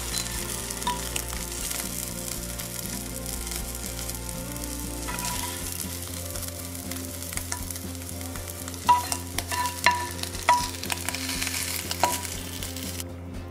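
Plant-based chicken strips sizzling in a hot non-stick frying pan as a slotted spatula scrapes and lifts them out, with several sharp taps and scrapes of the spatula on the pan about nine to twelve seconds in.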